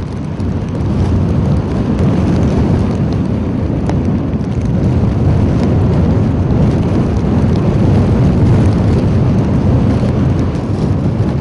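Loud, steady low rumble of wind and sea noise at the shore, with no distinct engine tone.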